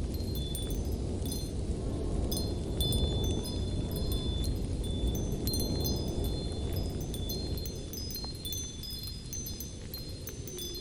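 Light wind blowing as a steady low rumble, with wind chimes ringing irregularly in short, high notes at several pitches.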